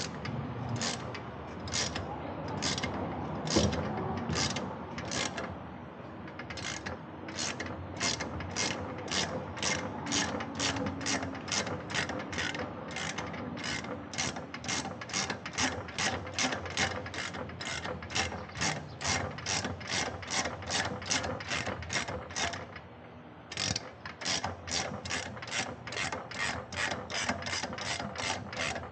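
Ratchet wrench worked back and forth, its pawl clicking on each return stroke. The strokes are slow at first, then quicken to a steady two to three a second. They stop briefly near the end and start again.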